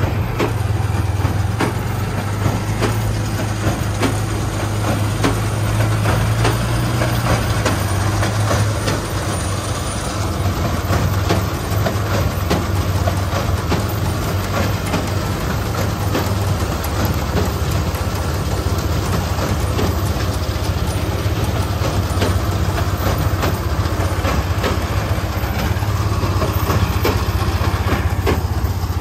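Case IH LB334R large square baler at work behind a tractor: the tractor engine's steady drone with the baler's mechanism clattering and knocking continuously as it picks up and packs hay.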